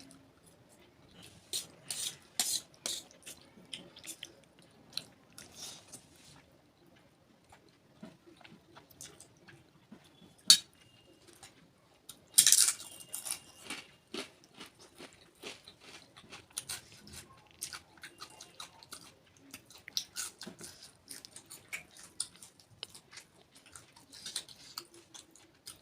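Close-miked eating sounds: chewing and biting, with frequent small clicks and scrapes of cutlery on a plate. There is a sharp click about ten seconds in and a louder, noisier burst a couple of seconds later.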